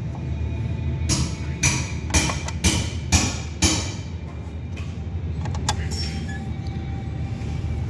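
Car engine idling with a low, steady hum, with a run of six sharp taps or knocks about half a second apart in the first half.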